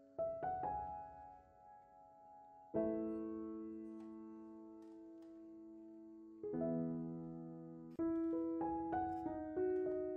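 Background piano music: a few slow chords left to ring, then a quicker run of single notes from about eight seconds in.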